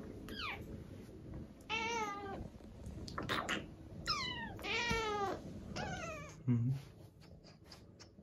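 A British longhair cat meowing repeatedly, about five short meows, some sliding down in pitch. A short low thump follows near the end.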